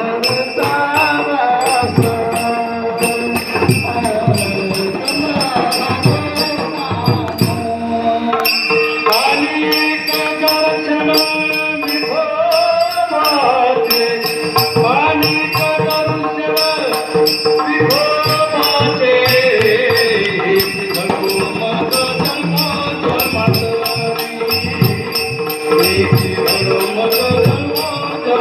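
Warkari kirtan music: a melody line, most likely the kirtankar's voice, gliding and bending over a steady drone, with rapid, regular metallic cymbal strikes keeping the beat.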